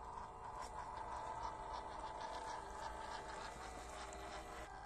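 Small electric motor and geared drivetrain of a 1/16-scale WPL RC crawler truck whining steadily as it drives, with scattered light ticks and crunches from the tyres on dirt and rock.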